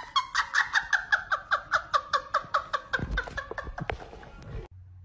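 A woman laughing hard in rapid, high-pitched bursts, about five a second, with a few low thumps near the end. The laughter cuts off suddenly.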